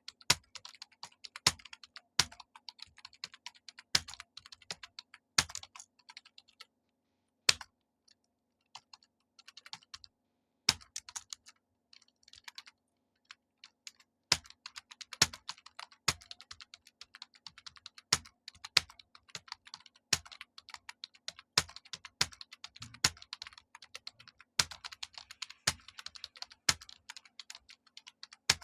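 Fast typing on a computer keyboard during a typing speed test: dense runs of keystrokes with a few louder strokes among them, slowing to scattered keystrokes twice for a few seconds before picking up again.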